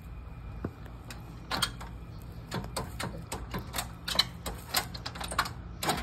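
Footsteps crunching over dry fallen leaves and sandy grass: a quick, irregular run of sharp crackles and scuffs, several a second.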